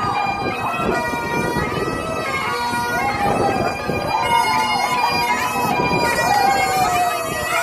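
Highland bagpipes playing a march tune: a melody on the chanter over the steady drones.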